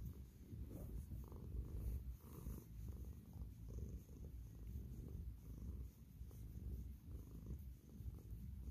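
Cat purring steadily while being stroked under the chin, the purr swelling and easing in waves every second or two.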